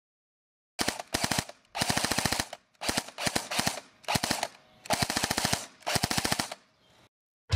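Automatic gunfire in about seven short bursts of rapid shots, with brief pauses between bursts.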